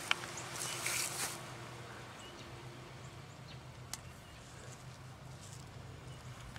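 An arrow striking a foam block archery target with a single sharp thwack right at the start, followed by a brief rustle. After that there is low background with a steady hum, and a single click about four seconds in as an arrow is nocked on a compound bow.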